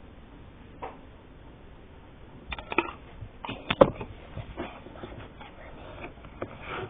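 Sticky homemade slime being stirred and worked in a container: a string of wet clicks and squelching pops, the loudest a little past the middle, as it comes together with activator.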